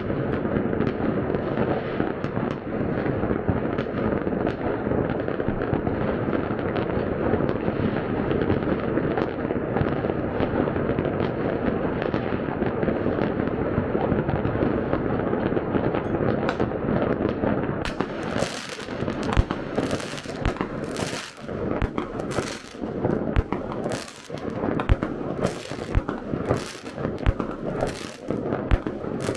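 Fireworks going off all over a city: a dense, unbroken mass of bangs and crackling. From about two-thirds of the way in, closer fireworks give louder, separate bangs with short gaps between them.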